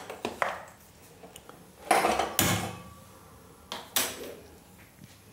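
Kitchen utensils and dishes clattering: several sharp knocks, the loudest about two and a half seconds in, some leaving a short ring.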